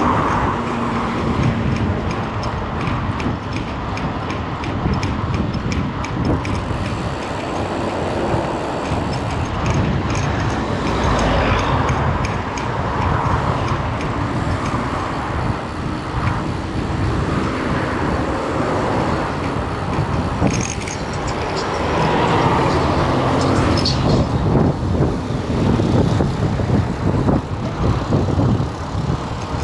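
Steady motor-vehicle and road noise, a continuous low rumble with some rattling.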